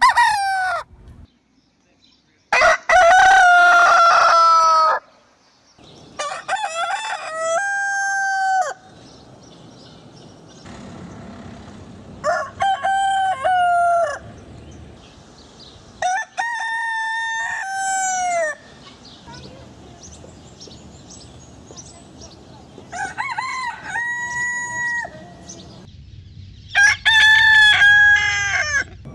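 Roosters crowing over and over: about seven crows a few seconds apart, each rising, holding and then dropping in pitch, at differing pitches.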